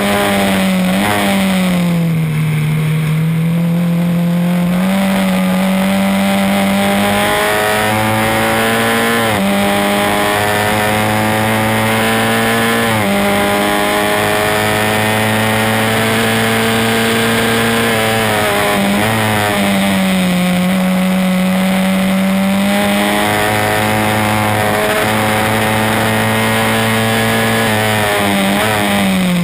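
On-board sound of a Swift SC92 Formula Ford 1600's 1.6-litre Ford Kent four-cylinder engine at racing speed, the pitch climbing steadily through the gears with sudden drops at each gear change and sinking as the revs come down for corners.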